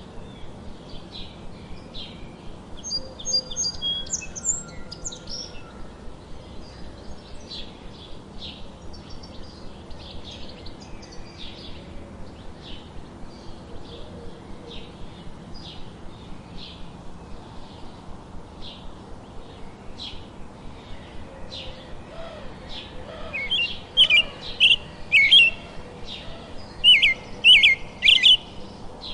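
Several wild songbirds chirping and singing: a steady run of short chirps, roughly two a second, with louder, clearer song phrases near the end.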